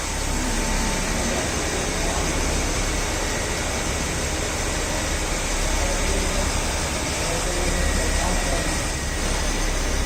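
Automatic cylinder boring machine running steadily while boring a two-wheeler cylinder block: a constant mechanical hum with a low rumble and a faint high whine.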